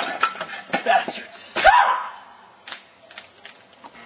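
A quick run of clattering knocks as square puzzle tiles are handled on a metal mesh table, then a loud shouted word, 'Bastards!', and a few scattered clicks afterward.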